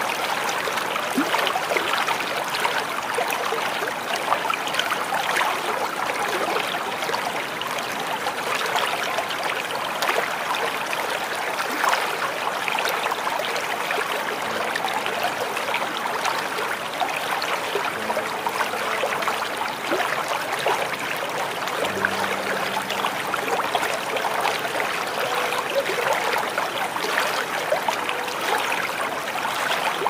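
Small waterfall with water splashing and trickling steadily, full of small, quick splashes.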